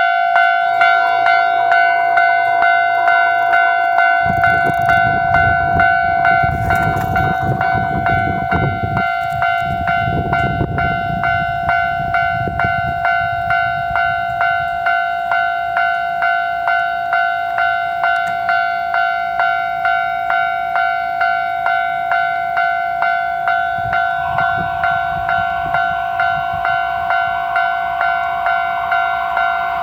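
Japanese railway level-crossing warning bell ringing steadily, a little over one strike a second. A low rumble passes between about 4 and 13 seconds in, and a rising rush near the end as the train approaches.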